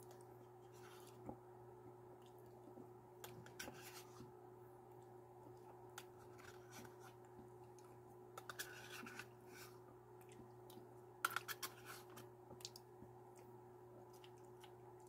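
Quiet eating sounds: a metal spoon clicking and scraping in a plastic pudding cup, with soft mouth sounds, as scattered small clicks over a steady low hum. The clicks bunch up about halfway through and again about three quarters of the way through.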